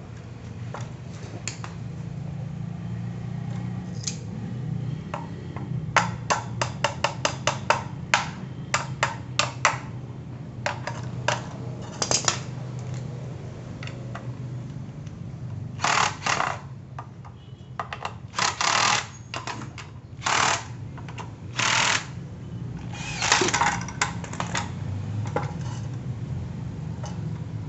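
A cordless drill driving fasteners into a metal drill-stand base in several short bursts, each under a second, after a quick run of sharp clicks.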